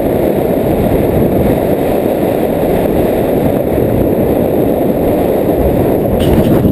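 Wind from paraglider flight buffeting the camera's microphone: a loud, steady rushing of airflow.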